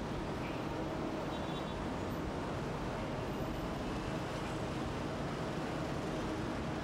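Steady, even rumble of vehicle noise.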